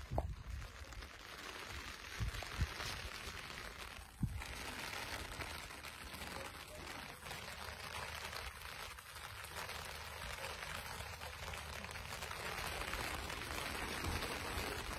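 Rain falling on an umbrella, heard from underneath: a steady hiss of drops on the fabric canopy that grows a little louder toward the end. A few short knocks sound in the first few seconds.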